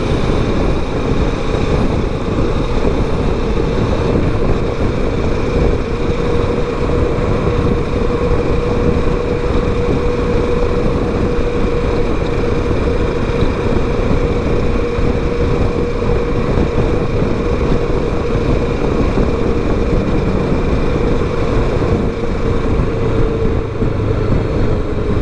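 Kawasaki Versys 650 parallel-twin motorcycle cruising steadily on a highway, its engine drone heard through wind noise on the helmet or bike-mounted mic. The engine note holds steady and drops a little near the end as the rider eases off.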